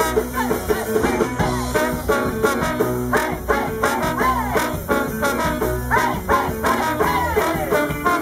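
Live band playing an instrumental break of an up-tempo rhythm-and-blues song: trombone and saxophone with a red hollow-body electric guitar, electric bass and drums, over a steady beat.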